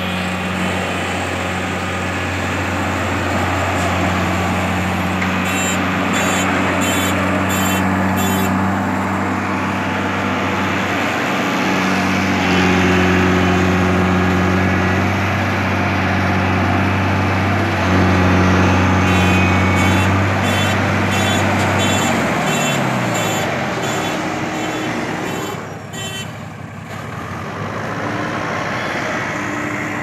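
Diesel engines of a TATA Hitachi tracked excavator and a JCB backhoe loader running while digging and pushing earth, a steady heavy engine note whose revs drop a little after twenty seconds in. Two runs of sharp, evenly spaced high ticks, about two a second, sound over it.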